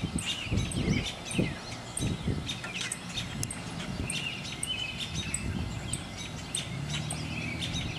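Small birds chirping over and over with short high calls, over low thumps and rumble from the camera being handled, which are heaviest in the first few seconds.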